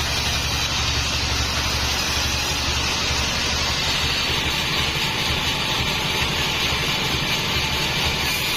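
Homemade band sawmill running steadily: a low, fast-pulsing engine drone under a constant rushing noise.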